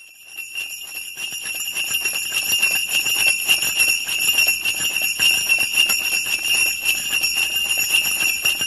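Sleigh bells shaken continuously in a rapid jingle, fading in over the first couple of seconds and then holding steady.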